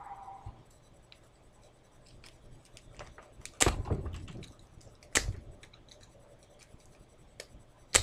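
Lock pick zipped out across the pin stack of a brass-bodied LAI padlock under tension, three sharp metallic zips, the first two about a second and a half apart and the third nearly three seconds later. The third zip sets the pins and opens the lock; faint light clicks of the pick in the keyway come in between.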